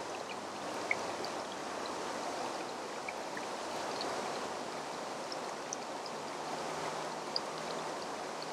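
Steady rush of flowing water, with a few faint short ticks scattered through it.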